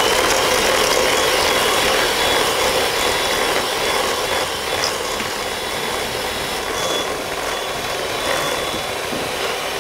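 Electric hand mixer running steadily with a high motor whine, its beaters whisking egg yolks and sugar in a stainless steel bowl.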